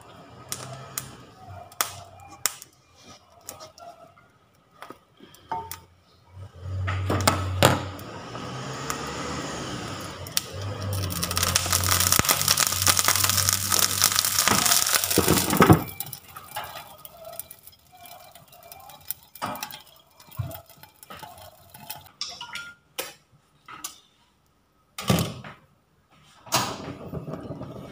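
Water dropped into a hot, oiled frying pan sizzling and hissing into steam around the soufflé pancakes, building about a quarter of the way in, loudest about halfway through, and cutting off suddenly. Before and after it come scattered short knocks and clicks of a spatula against the pan.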